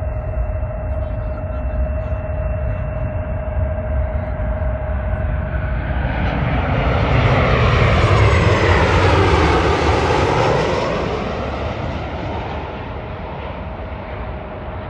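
Airliner's jet engines passing close overhead: the noise swells to a peak about eight seconds in, with a sweeping, shifting pitch as it goes by, then fades.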